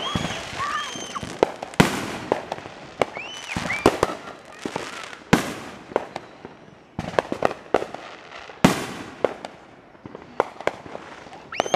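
Fireworks going off: many sharp bangs and bursts at irregular intervals, some loud and some fainter.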